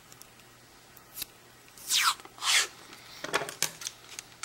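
Kapton tape pulled off its roll in two quick pulls, each a short screech that falls in pitch, followed by light crackling and clicks as the tape is handled.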